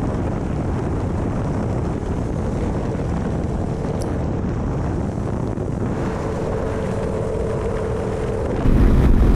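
Yamaha Ténéré 700's parallel-twin engine running at a steady riding speed under a dense rush of wind and road rumble. A little before the end it suddenly gets louder, with the engine's hum standing out more clearly.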